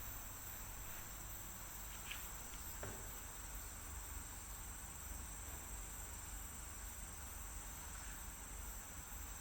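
Steady high-pitched rainforest insect chorus, continuous and unchanging, over a low steady rumble, with a faint short chirp about two seconds in.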